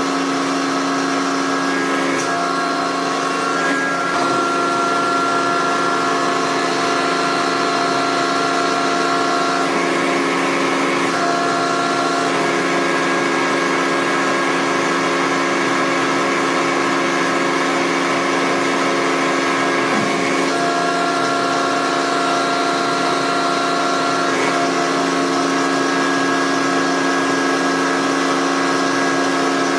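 Roadheader running: a steady mechanical hum made of several held tones, with whining tones that step up or drop out a few times.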